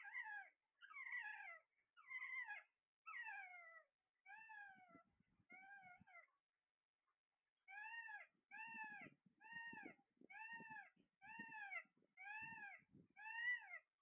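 A parrot calling over and over, about one call a second. First come six calls that slide down in pitch, then a pause of about a second and a half, then seven arched calls that rise and fall.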